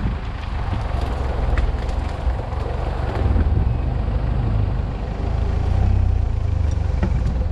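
Mitsubishi Pajero's engine running at low speed under load as the 4x4 crawls off-road through brush, its rumble swelling and easing. Occasional sharp cracks of twigs and branches against the body.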